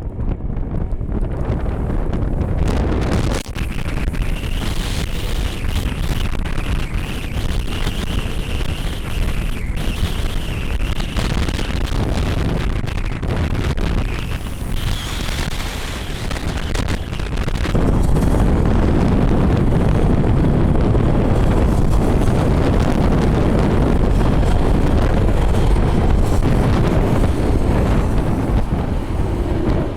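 Strong wind buffeting the microphone throughout, getting louder about two-thirds of the way through. In the first half a steady high whine comes and goes, the sound of a jet airliner's engines.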